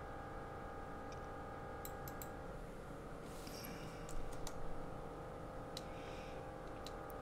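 Scattered clicks of a computer mouse, a few in quick succession, with brief rustles between them, over a steady faint hum.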